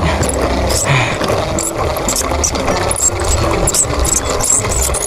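Geared hand-crank kite-line reel being wound, its gears clicking rapidly as the line is reeled in.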